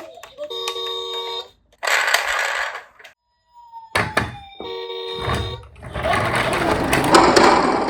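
Electronic sound effects from a toy police car: a short ringing tone played twice, about four seconds apart. Noisy bursts fall between the tones, and a longer loud noisy stretch follows near the end.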